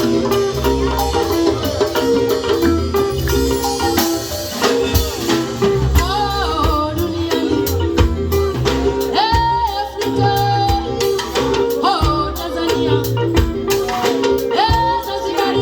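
Upbeat band music with a steady drum beat, a bass line and a repeating melodic figure, with a voice holding sung notes several times.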